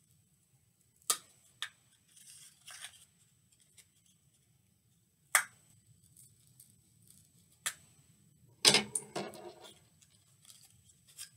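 A pencil point being pushed into a cardboard tube to punch holes, heard as scattered sharp taps and short cardboard rustles, with a louder flurry of clicks and rustling about nine seconds in.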